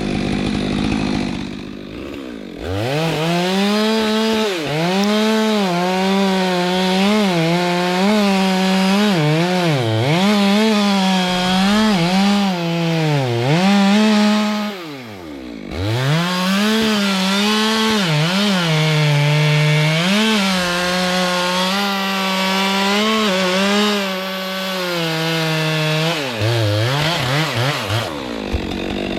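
Two-stroke chainsaw running at high revs while cutting kapok wood, its pitch dipping and recovering again and again as it comes under load. About halfway the revs fall away briefly and rise again, and near the end they drop off.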